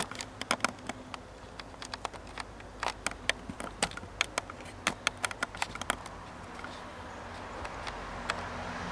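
Camera and stand being handled and adjusted: irregular light clicks and taps for about six seconds, then a soft rising rustle near the end.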